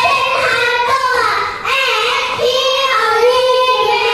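A group of young children singing together in unison. Their high voices hold notes, with short breaks between phrases.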